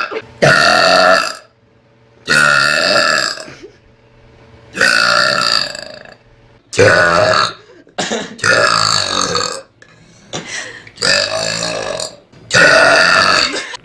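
A girl burping loudly over and over after gulping cola: about eight long, pitched burps in a row, each around a second long, with short pauses between them.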